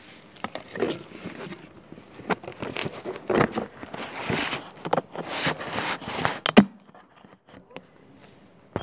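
Dry grass and reed stalks rustling and crackling as someone pushes through them on foot, in irregular bursts with many sharp snaps, and one sharp knock about two-thirds of the way in.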